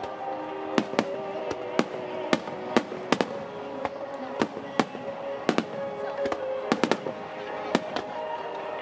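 Aerial firework shells bursting in a rapid, irregular string of sharp bangs, some coming in quick pairs, about two a second.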